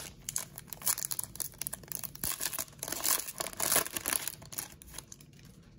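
The foil wrapper of a Certified football card pack being torn open and crinkled: a dense run of sharp crackles that dies away near the end.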